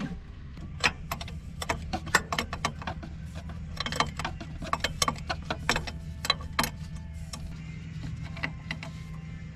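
Irregular metallic clicks and clinks of parts and tools being handled in a partly stripped car engine bay, over a steady low hum.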